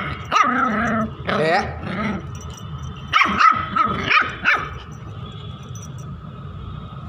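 A one-month-old Indian Spitz puppy barking: short barks in bursts through the first four and a half seconds, the last burst about four seconds in, then a quieter stretch.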